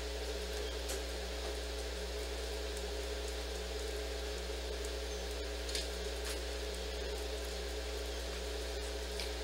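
Steady machine hum with a low drone and a higher whine over a soft hiss, with a few faint clicks in the second half.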